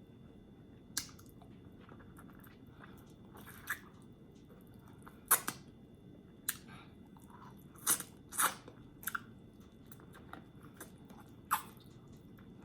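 A person chewing a big mouthful of food close to the microphone, with sharp wet mouth clicks and smacks at uneven intervals.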